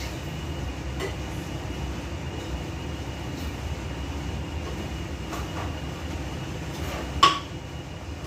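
Steady low rumble of a kitchen fan with a faint high whine, under light clinks of kitchenware being handled. A single sharp, ringing metallic clank comes about seven seconds in.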